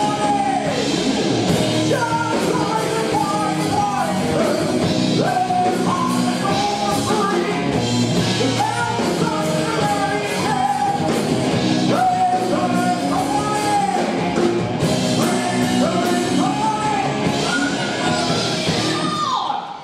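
Live rock band playing: a male vocalist singing over electric guitars, bass guitar and a drum kit. The song stops at the very end.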